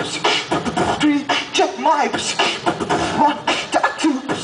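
Beatboxing into a handheld microphone over a stage PA: fast mouth-made drum hits with short hummed pitch slides between them.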